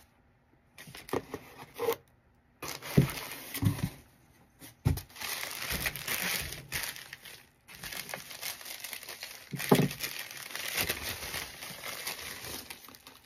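Packaging being rustled and crinkled as items are unwrapped and lifted out of a box, with a few soft knocks of handling. It starts about two and a half seconds in after a brief quiet spell and carries on to the end.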